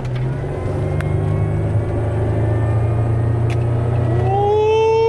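Supercharged Pontiac engine pulling hard under acceleration, a low exhaust drone slowly getting louder, with the supercharger's whine coming in and rising in pitch about four seconds in.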